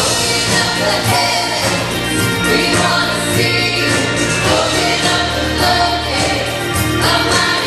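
Live gospel praise music from a church band of electric guitars, bass, keyboard and drums, with a choir singing along.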